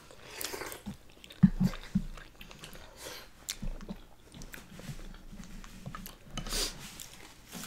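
Close-miked chewing and mouth sounds of people eating soft baked ziti, with scattered small clicks and a few dull taps of forks in the dish about one and a half to two seconds in.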